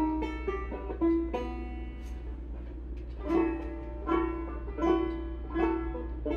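Instrumental music: a plucked string instrument picking a run of quick notes, with stronger accented plucks about every 0.8 s in the second half.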